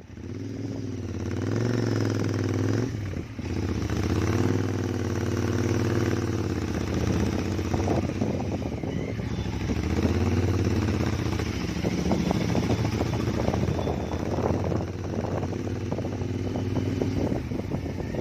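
Royal Enfield GT650's 648 cc parallel-twin engine through an aftermarket Gursewak short exhaust, under way: the engine note rises and falls with the throttle, dipping briefly about three seconds in.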